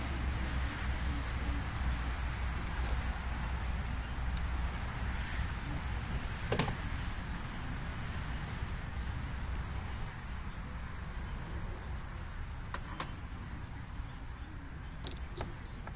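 Steady outdoor background hiss with a few isolated sharp clicks of hand tools and a socket being handled, the loudest about six and a half seconds in.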